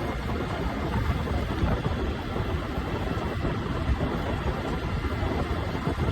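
Preet 987 combine harvester's engine running steadily as the machine drives along, a dense low rumble.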